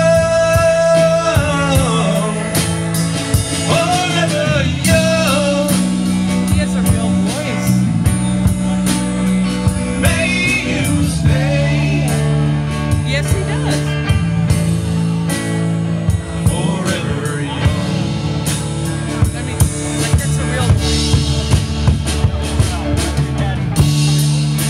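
A live rock band playing through a PA: drum kit, bass and electric guitar, with a lead line of long held notes that bend in pitch.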